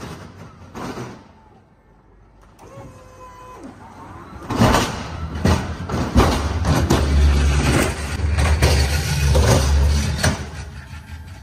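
Pallet truck loaded with a pallet of flat cardboard rolling out of a trailer over a steel dock plate and onto a concrete floor: a loud, low rumble with repeated clanks and knocks. It starts about four and a half seconds in and fades just before the end.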